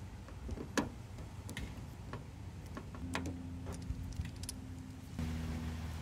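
Scattered light clicks and taps of hands working at the handle-screw access hole and grommet on a car door's edge, with one sharper click about a second in. From about halfway a steady low hum joins in.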